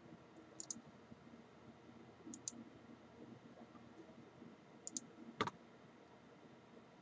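Computer mouse clicking: three quick press-and-release double clicks about two seconds apart, then a single louder click with a low knock about five and a half seconds in.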